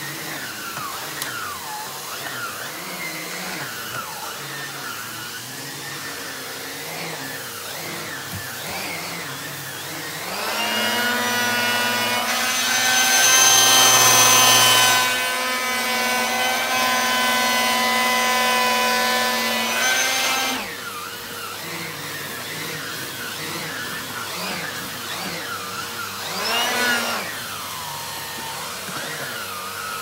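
Numatic Henry HVR200 cylinder vacuum cleaner with its 620 W single-speed motor running while an Airobrush turbo head is pushed over carpet. About ten seconds in, a much louder whine of several pitches rises in, holds for about ten seconds and drops back, and it swells again briefly near the end.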